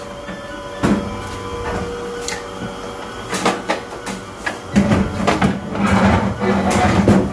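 Knocks, clatter and scraping as a metal kitchen chimney hood is handled and lifted into place against the wall, with a few separate knocks early on giving way to denser rubbing and knocking in the last two seconds.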